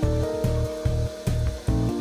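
Background music with a steady beat, about two and a half beats a second, under held tones that change pitch near the end.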